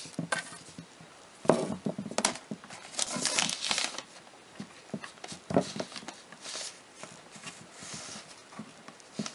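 Handling noise from pulling a wiring harness and its plastic sheathing through a car side-mirror base: scattered rubbing rustles and small knocks, with a longer rustle about three seconds in.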